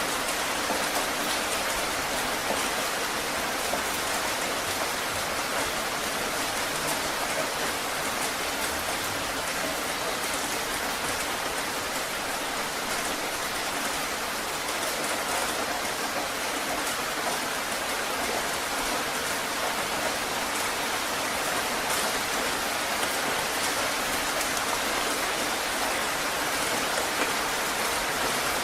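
Heavy rain falling steadily, a dense even hiss of drops on surfaces with scattered individual drop taps.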